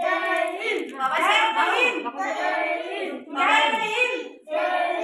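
A woman and young children singing together in unison, in short phrases of held notes.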